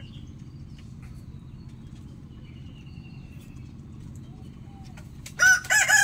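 A rooster starts crowing about five and a half seconds in: loud, in broken rising-and-falling syllables, the opening of a cock-a-doodle-doo. Before it there is only a steady low background noise.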